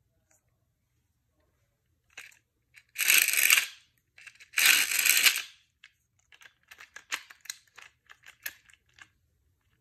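Beyblade string launcher's cord pulled out twice, each a short rasping whir of under a second, then a run of light plastic clicks and taps as the launcher is handled.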